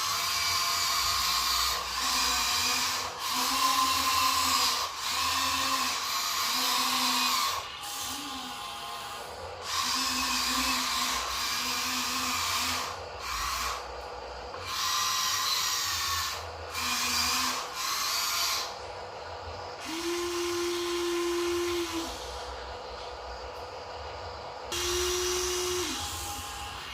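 Small electric motors and gearboxes of a Huina radio-controlled excavator whining in repeated stop-start bursts of one to two seconds as its functions are worked, with a smoother, steadier hum for a couple of seconds later on.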